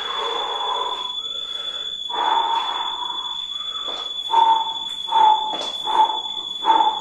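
A person blowing into cupped hands to make a hollow, breathy hand whistle: two longer held notes, then short hoots repeated about once a second. A thin steady high tone sits underneath.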